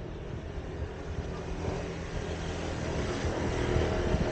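Car on the move: steady engine and road noise, growing a little louder toward the end.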